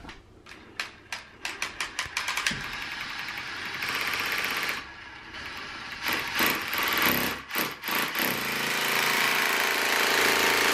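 Cordless drill boring into a wall overhead. It starts as a series of short stop-start bursts, then runs steadily, with a brief pause about five seconds in before a longer continuous run.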